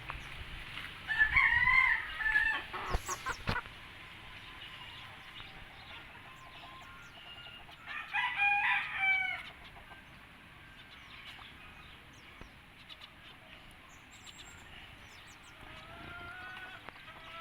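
A rooster crowing twice: one crow about a second in, another around eight seconds in, each lasting about a second and a half.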